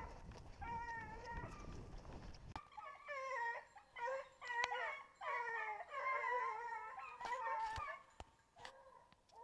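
Griffon bleu de Gascogne hound baying, a run of drawn-out calls that bend up and down, coming thick through the middle and thinning out near the end. A low rumble underneath cuts off suddenly about two and a half seconds in.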